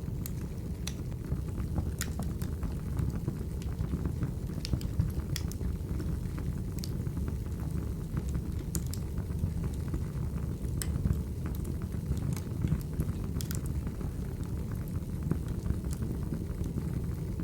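Wood fire burning in a fireplace: a steady low rumble with sharp crackles and pops at irregular moments.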